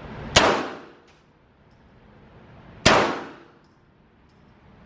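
Two pistol shots from a Glock, about two and a half seconds apart, each a sharp crack with a ringing tail.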